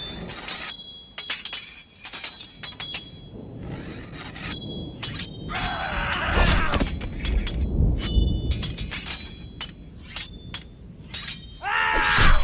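Sound effect of crashing, shattering impacts in quick, irregular succession, with a clinking, glassy ring after many hits. A wavering pitched cry-like sound rises about six seconds in, and another, falling in pitch, comes just before the end.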